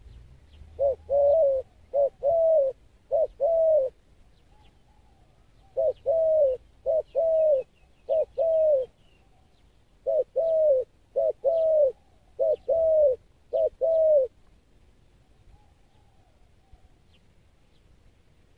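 Spotted dove cooing: three phrases of paired coos, each pair a short note followed by a longer one that falls at the end, with pauses of about two seconds between phrases. The first two phrases hold three pairs, the last four.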